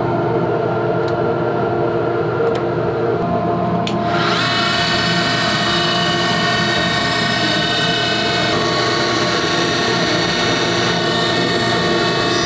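Wood lathe running steadily as a wooden pen blank spins. From about four seconds in, a harsher, higher scraping sound joins as a turning chisel cuts the spinning wood.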